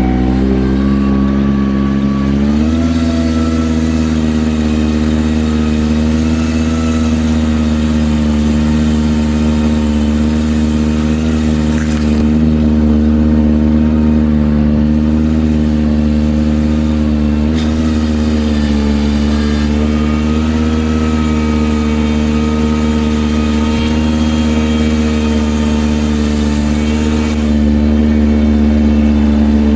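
Ventrac 4500Z compact tractor's engine running steadily at working throttle. It steps up in pitch about two seconds in, then holds.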